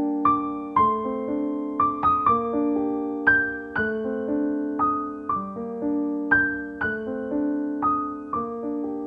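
Slow background piano music: single notes and chords struck one after another, each ringing and fading, forming a gentle melody.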